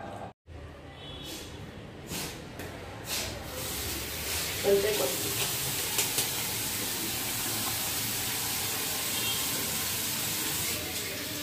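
Tap water running into a metal sink basin while hands are washed under it: a steady rush that starts about three and a half seconds in, after a few short knocks.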